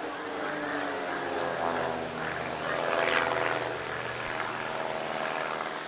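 Van's RV-8 aerobatic planes' 180-horsepower piston engines and propellers running in formation flight. Their pitch glides down, then rises to the loudest point about three seconds in.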